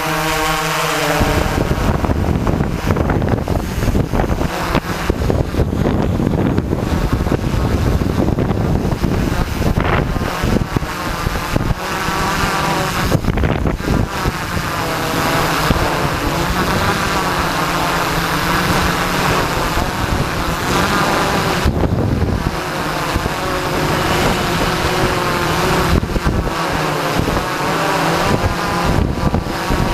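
Multirotor drone's motors and propellers buzzing, heard close up from a camera mounted on the drone itself. The drone lifts off from the ground and hovers, and the pitch wavers as the motors adjust. Wind buffets the microphone.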